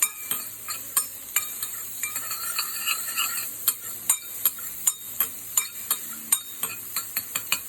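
Chopped onion, capsicum and carrot sizzling in a little oil in a pan as they are stir-fried, with a steady hiss and many sharp knocks and scrapes of the stirring utensil against the pan.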